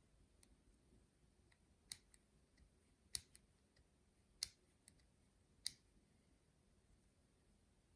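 Small sharp clicks from hand work on airgun parts during reassembly: four louder ones evenly spaced about a second and a quarter apart, with fainter ticks between.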